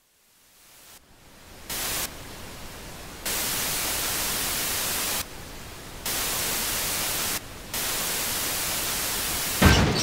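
Television static hiss, fading in and then switching abruptly between louder and softer stretches every second or two. A loud thud comes just before the end.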